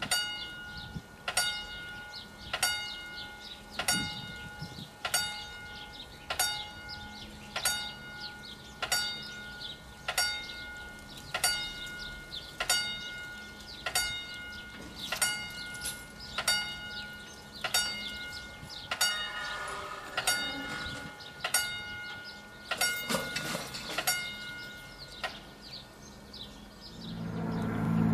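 Level crossing warning bell striking evenly, about once every 1.25 seconds, each strike ringing with the same clear tone. It stops near the end, and a train's low rumble rises as it approaches.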